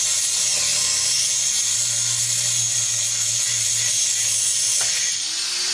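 A power tool running continuously: a loud, steady, hissing rush with a low hum beneath, its pitch shifting a little near the end.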